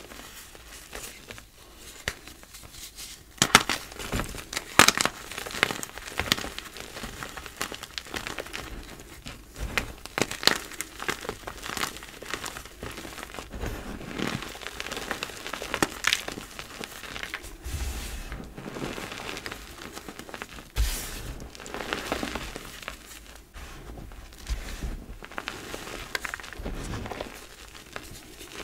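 Reformed gym chalk blocks crushed and crumbled by hand in a pile of loose chalk powder: dry, irregular crunching and crackling, with a few louder snaps as chunks break.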